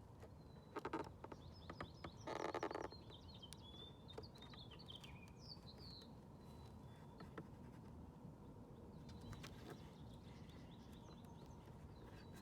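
Quiet background with birds chirping faintly. There is a short knock about a second in, then a brief scraping noise a little after two seconds, from a plastic pry tool being worked along the edge of a truck's side-mirror cap.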